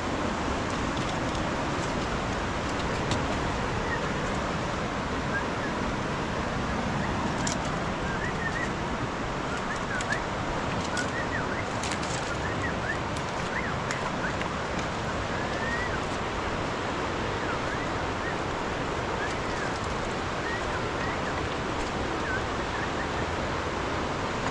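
Steady rushing of floodwater, with many short, high bird chirps scattered over it.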